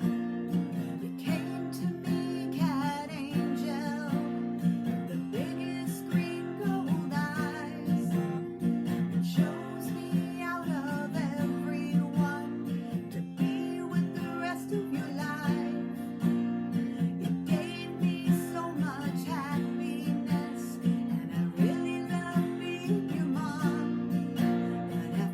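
Acoustic guitar strumming chords at a steady pulse.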